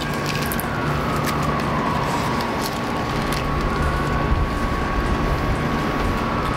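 Steady mechanical hum and rumble, like an engine or machine running nearby, with a constant high whine and a fainter whine that drifts slowly down and back up. A few light taps and crinkles sound over it.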